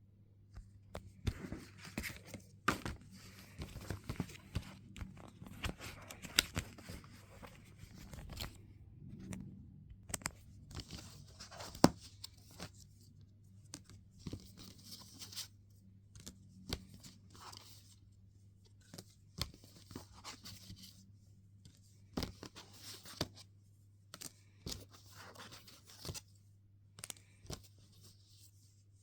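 Hands handling an album's paper and plastic packaging and contents: irregular rustling and tearing with sharp taps and clicks scattered throughout, over a faint steady hum.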